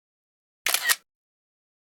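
A camera-shutter click sound, a quick double click, heard once about two-thirds of a second in, against dead silence: the drone's photo capture firing, repeated at an even interval of about two seconds.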